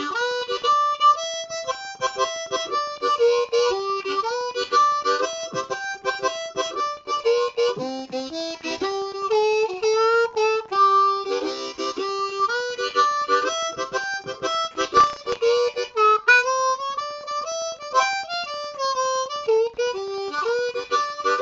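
Unaccompanied blues harmonica played with cupped hands, mixing single notes with rhythmic chords and bent notes that slide in pitch. It is a pass through a 12-bar blues, played to spell out the chord changes of the progression.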